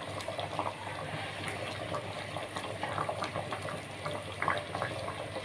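Fish curry with coconut milk bubbling at a boil in an earthenware pot, a steady light bubbling with many small irregular pops.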